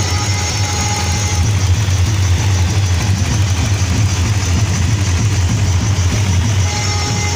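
Loud, steady, distorted bass rumble from large competition loudspeaker boxes, with little above the low end.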